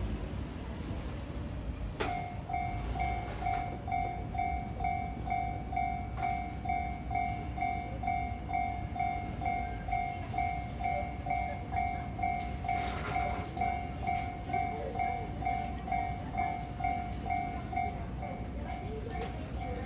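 Japanese railroad crossing's warning bell starts about two seconds in and rings on steadily, about two dings a second, over a low background rumble. It signals that a train is approaching the crossing.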